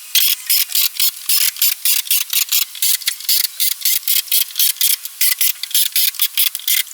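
Corded screw gun driving deck screws into deck boards: a loud, even run of rasping bursts, about five a second.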